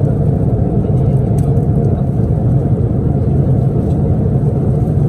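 Steady cabin noise of an Airbus A330-300 in cruise: a constant low rumble and hum of engines and airflow, with a few faint light clicks of a fork against the foil meal tray.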